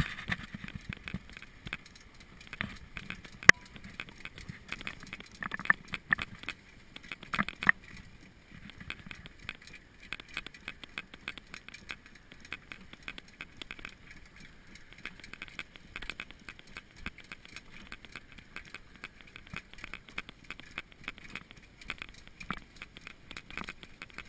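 A trotting horse's hooves on a gravel road and the rattle of the light sulky it pulls, heard from on board the cart: a steady run of quick, even clicks and clatter, with a few louder knocks in the first eight seconds.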